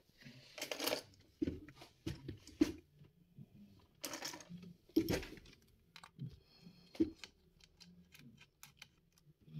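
Hands working on a laptop during disassembly: scattered light clicks, taps and knocks of plastic casing and small parts, with a few firmer knocks about a second, four seconds and five seconds in.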